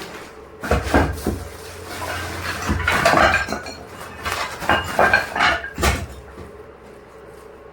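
Metal parts clanking and clattering in a string of irregular knocks, as metal pieces are handled and knocked together; it dies down about six seconds in.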